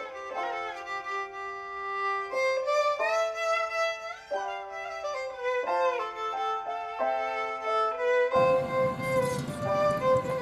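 Background music: a violin-led melody of held notes changing every second or so. About eight seconds in, a steady rushing noise joins underneath the music.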